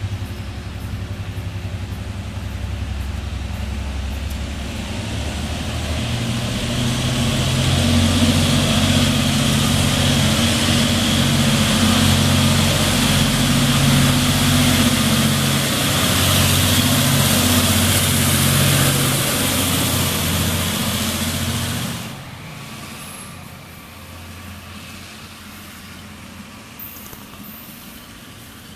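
Diesel locomotive of a container freight train running, its engine hum growing louder as it approaches and passes, with a hiss of wheels on rail. About 22 s in the engine sound drops off suddenly, leaving the quieter rolling of the container wagons with a few faint clicks.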